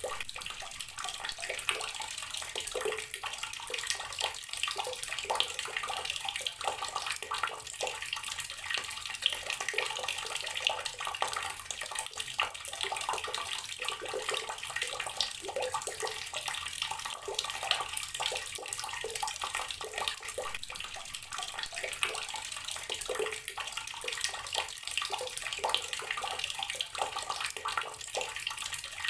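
Water tap running steadily, the stream splashing into a basin or tub with an even, unbroken rush.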